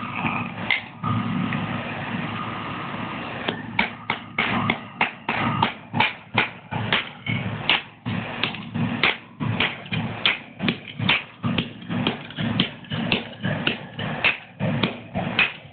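Hammer blows striking the remains of an LCD alarm clock on a small anvil: a fast, even run of sharp bangs, about two a second, starting a few seconds in.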